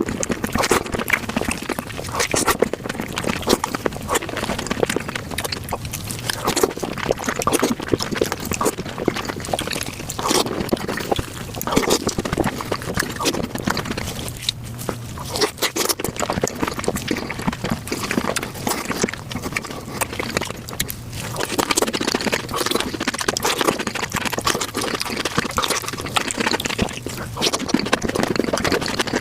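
Fruit being bitten and chewed close to the microphone, played back sped up about five times: a dense, unbroken stream of rapid crunches and smacks.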